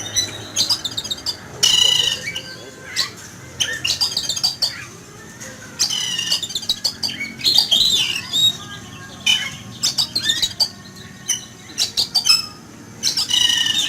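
Oriental magpie-robin singing loudly in quick, varied phrases mixed with harsh squawking calls: an agitated outburst that the owner puts down to the bird seeing an eagle flying overhead.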